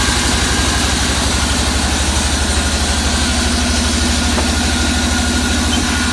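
The engine driving a band sawmill running steadily between cuts, with a regular low throb and a hiss over it; the saw is not cutting.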